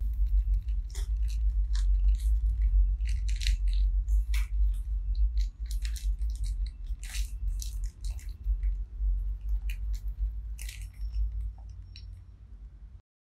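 Parchment paper crinkling and crackling in irregular bursts as hands roll a chocolate sponge cake up inside it, over a steady low rumble; the crackles thin out near the end.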